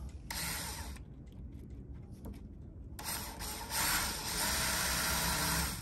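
DeWalt cordless drill run in reverse with a quarter-inch bit against fiberglass, scuffing the start of a hole so the fiberglass doesn't chip. A short run at the start, then a louder, longer run from about three seconds in that stops just before the end.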